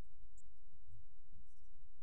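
Muffled low rumble with soft, irregular bumping from a camera strapped to a walking Siberian husky, jostled by her movement.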